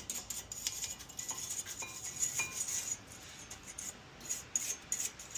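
A metal hand tool scratching and clinking against the brake caliper bracket and its pad clips: a quick irregular run of short scrapes and taps with a few brief metallic rings, as caked brake dust and grime are scraped off.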